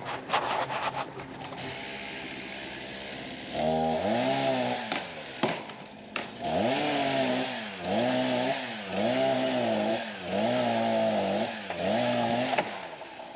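Gasoline chainsaw idling, then revved up and down repeatedly, about six revs a little over a second apart, before dropping back near the end.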